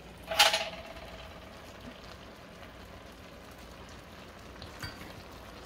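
A single sharp metallic clank about half a second in, ringing briefly as it fades, with a softer knock near the end. Under it runs a faint steady hiss from a pot of rice and beans simmering on the stove.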